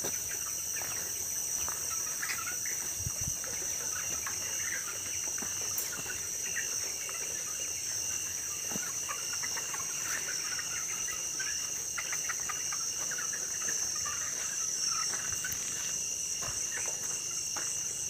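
A flock of broiler chickens giving many short, scattered peeps and soft clucks, over a steady high-pitched drone of insects.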